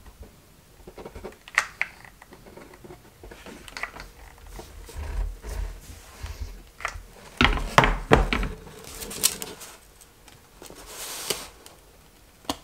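Handling noise of gluing up a foam board box with a hot glue gun: scattered light clicks and taps, a few louder knocks about eight seconds in, then soft scraping of foam board.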